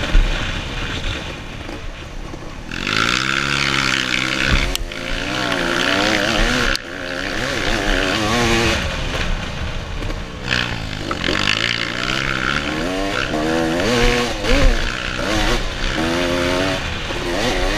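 Suzuki RMX 250 two-stroke single-cylinder dirt bike engine, revving up and down over and over as the throttle is worked, with a sudden drop about seven seconds in.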